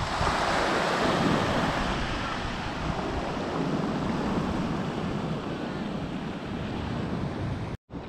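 Sea surf breaking and washing up a pebble beach: a steady rush of waves and foam, loudest in the first couple of seconds, cutting off abruptly near the end.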